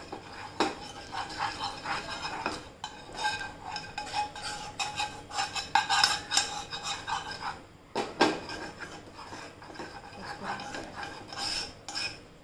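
Steel spoon scraping and rubbing around the inside of a frying pan, spreading oil to grease it, with occasional clinks of spoon against pan.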